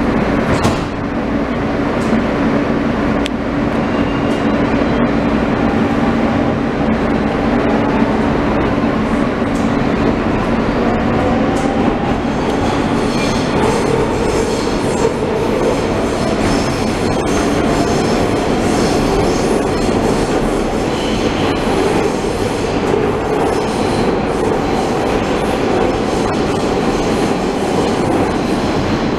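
Inside a moving R160B subway car with Siemens propulsion: steady running and track noise. About ten seconds in, the traction motors' whine rises in pitch as the train picks up speed.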